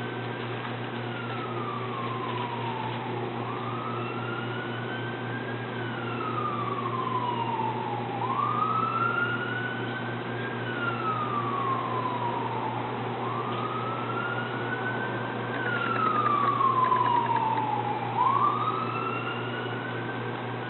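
A siren wailing, its pitch climbing quickly and then sliding slowly down about every five seconds, over a steady low hum.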